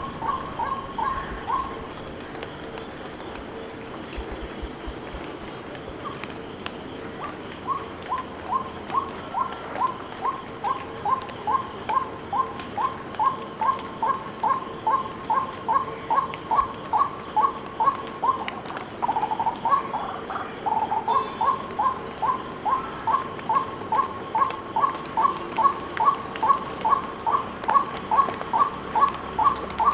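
White-breasted waterhen calling: a long monotonous series of short notes, about two a second, that starts after a few seconds' pause and grows louder, broken once by a lower note about two thirds through.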